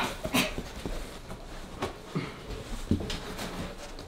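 Cardboard boxes rustling, scraping and knocking together as a person moves about wearing them, with a few separate soft knocks.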